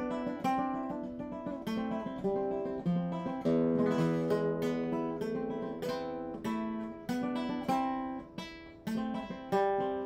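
A 1962 José de la Mora guitar played solo: a run of plucked notes and strummed chords, each ringing out and dying away, rich in overtones.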